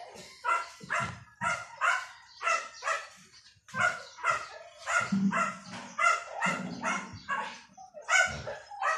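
An animal calling over and over in short, sharp cries, about two a second.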